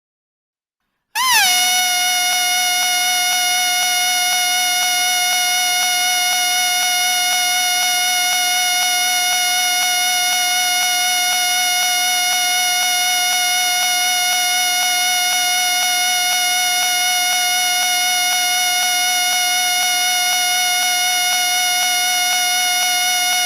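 A whistle blown in one long, steady, unbroken note. It follows about a second of silence, and the note opens with a brief quick rise and fall in pitch.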